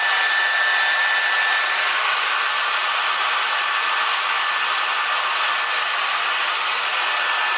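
Electric hot-air blower running steadily, shrinking heat-shrink tubing over a battery cable connector; a faint high whine sits in the first couple of seconds.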